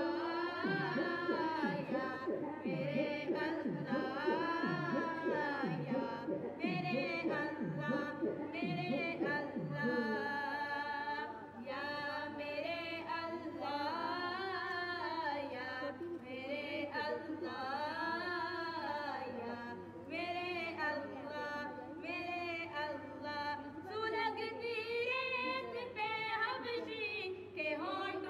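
A voice singing a slow devotional-style melody without instruments, with long wavering notes and a repeating low pulse under roughly the first ten seconds.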